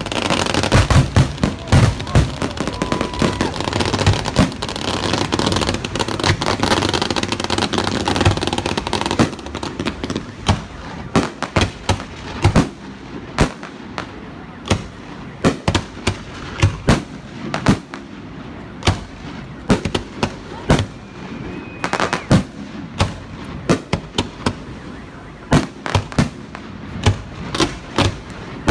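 Fireworks bursting: a dense barrage of bangs and crackling for the first several seconds, then separate sharp bangs at irregular intervals, about one or two a second.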